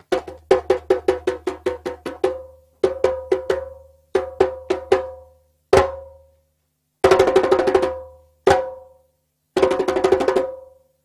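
Percussion music: sharp, ringing drum strikes in quick runs broken by short pauses, with two fast rolls in the second half over a low bass tone.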